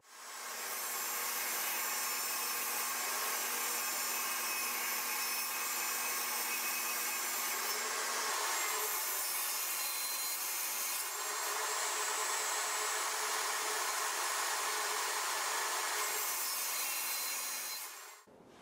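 Table saw cutting plywood: the saw runs steadily under load as the boards are pushed through the blade. There is a brief dip about ten seconds in, and the sound cuts off abruptly near the end.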